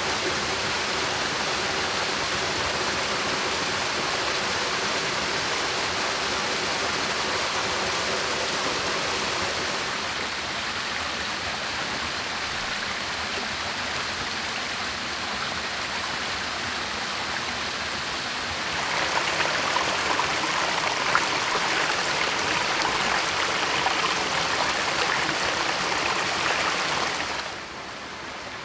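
Rushing, splashing water of a rocky stream and small waterfall, a steady hiss. It turns louder and brighter about two-thirds of the way through, then drops to a quieter wash near the end.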